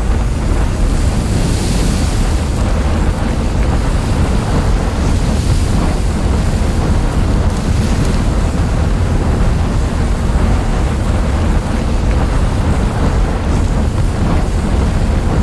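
Loud, steady rumbling rush of noise, heaviest in the deep lows, with no distinct events: a background ambience sound effect.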